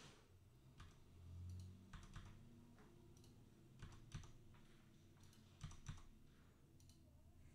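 Faint, scattered computer keyboard typing, a few key clicks at a time, with a brief low hum about a second and a half in.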